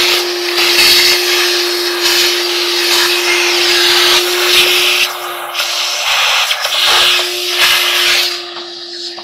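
Vacuum cleaner with a long crevice nozzle sucking out the dryer's cabinet around the drum opening and blower housing: a loud suction hiss that swells and dips as the nozzle is moved about, over a steady hum. The hiss falls away shortly before the end.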